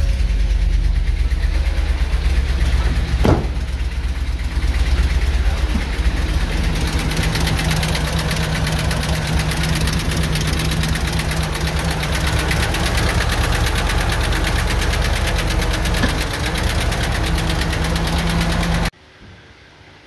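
2015 Ford F-250's 6.2-litre gasoline V8 running rough with a rapid knocking and swishing sound: it is misfiring on several cylinders, and the mechanic suspects a dropped intake valve. The sound cuts off abruptly near the end.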